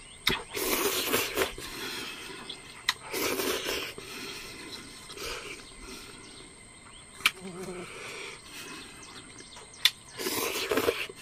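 Slurping of instant noodles in soup, eaten with chopsticks: three long slurps, the last near the end, with a few sharp clicks in between.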